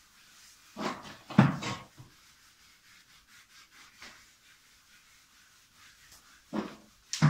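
A grooming brush rubbing over a horse's coat, in two short runs of strokes: about a second in and again near the end.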